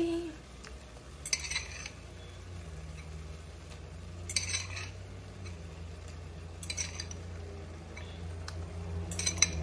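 A cooking utensil clinking and scraping against a pan in four short bursts, about one every two and a half seconds, as the ackee is stirred into the saltfish.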